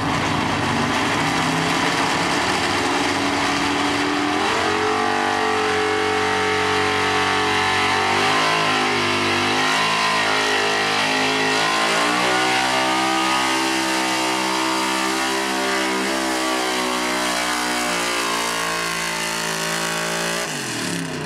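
Pulling truck's engine at full throttle as a 1970s Ford F-series 4x4 drags a weight-transfer sled down a dirt track. The engine note shifts pitch several times during the pull, then the revs fall away sharply near the end as the pull ends.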